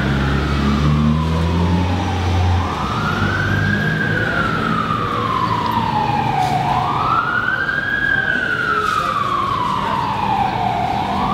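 Siren wailing: a tone that climbs quickly, then falls slowly, over and over about every four seconds. A steady low hum sits under it for the first few seconds.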